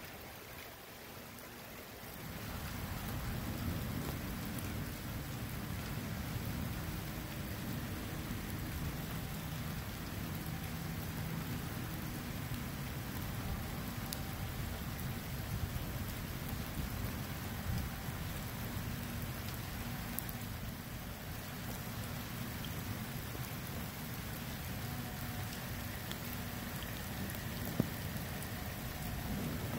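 Steady rain falling, with a low rumble that swells in about two seconds in and carries on steadily.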